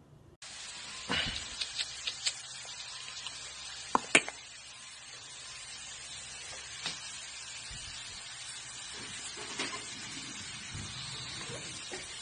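Steady hiss of background noise that starts abruptly about half a second in, with a few light clicks in the first couple of seconds and two sharp knocks about four seconds in.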